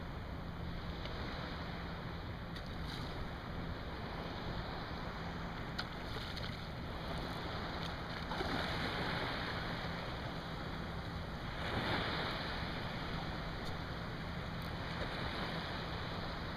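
Steady wind and water noise from small waves lapping, with wind on the microphone. The water noise swells louder twice, about eight and twelve seconds in.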